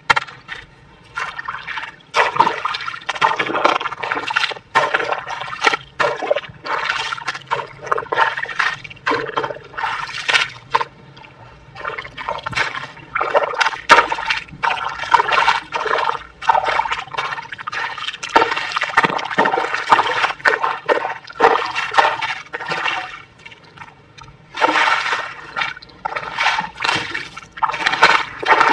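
Wet, sandy mud being stirred and scraped with a stick and pressed by hand, making watery sounds in irregular bursts about a second long.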